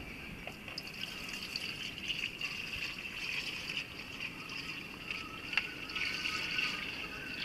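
Diesel poured from a plastic jerrycan into a plastic filter funnel, a steady trickle and splash of fuel.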